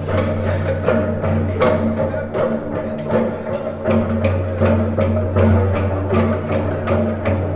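Teponaztli, a wooden Aztec slit drum, struck with mallets in a quick, steady rhythm of sharp wooden strikes, over a sustained low tone.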